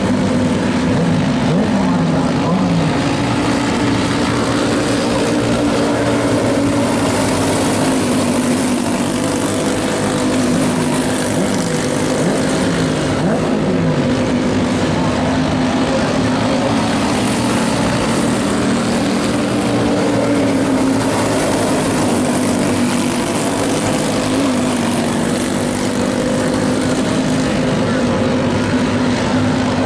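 Several junior sprint car engines running together as the cars lap a dirt track, with revs rising and falling in short repeated surges near the start and again about halfway.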